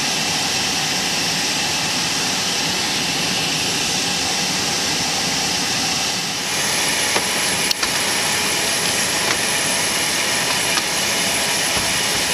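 Steady jet turbine noise from a running aircraft. About six and a half seconds in it turns brighter, with a thin high whistle added, and a few light clicks follow.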